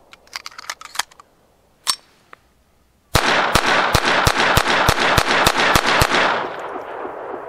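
A Browning .22 semi-automatic pistol gives a few small metallic clicks as it is handled and readied. A fast, even string of about a dozen shots of Remington Thunderbolt .22 LR follows, roughly four a second, and the echo fades after the last shot.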